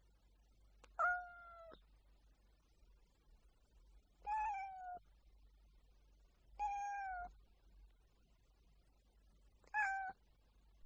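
A cat meowing four times, each meow short and steady in pitch, about every two to three seconds.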